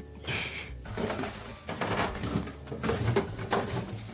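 A run of irregular knocks and thuds in a small wooden room, over a steady low hum.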